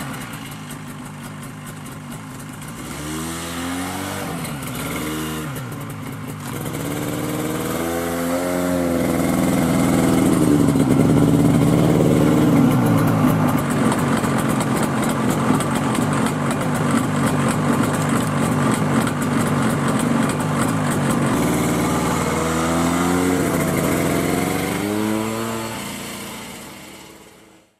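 Buran snowmobile's two-stroke engine running and revving up and down several times as it pulls away through the snow, loudest about ten seconds in. The sound fades out near the end.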